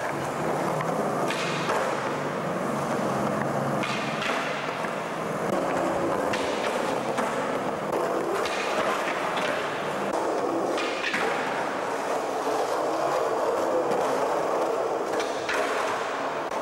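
Skateboard wheels rolling steadily on a smooth concrete floor, broken every two to three seconds by a sharp clack of the board popping and landing during flatground tricks.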